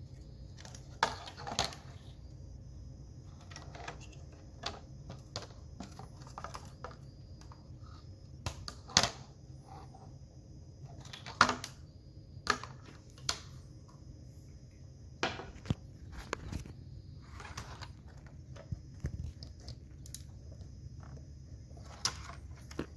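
Irregular clicks, taps and knocks of small tools and parts being handled during bench repair work, a few of them sharper and louder, over a steady low hum and a faint high whine.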